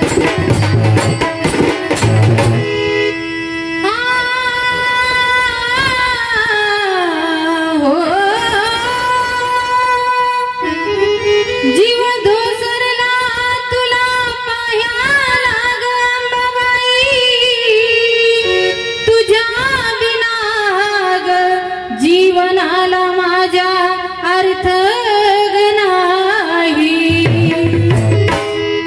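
A woman singing a Marathi devotional song to the goddess Ambabai into a microphone, in long drawn-out lines whose notes slide up and down, over steady musical accompaniment. Drum beats play for the first couple of seconds and return briefly near the end.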